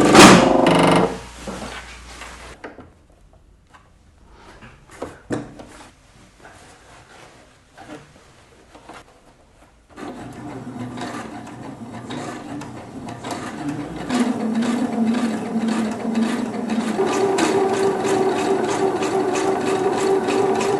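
A sewing machine stitching fabric in one long continuous run, a rapid even patter of needle strokes over a motor hum that speeds up twice. Before it, a loud clatter in the first second and a few light handling clicks.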